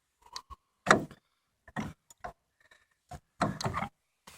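Clicks and knocks of hands working at a tractor's coolant filler: scattered single knocks, a loud one about a second in, then a quick run of knocks near the end.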